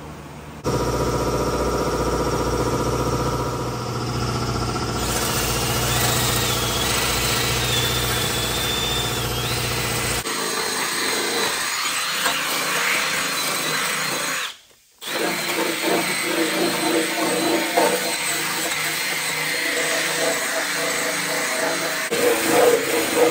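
A handheld power tool with an abrasive head runs against the bare sheet metal of a car's inner wheel well, stripping it. The sound starts suddenly and runs steadily at first, then turns rougher and more uneven as the tool works the metal, with a brief break about two-thirds of the way through.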